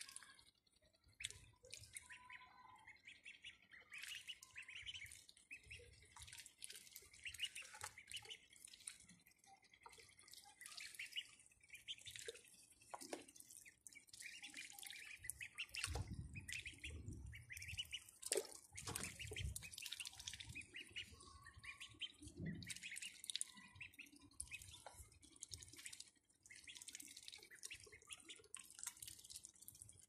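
Domestic ducklings dabbling their bills in a shallow tub of water: soft, faint splashing and dripping, with a few quiet peeps. A few low bumps come around the middle.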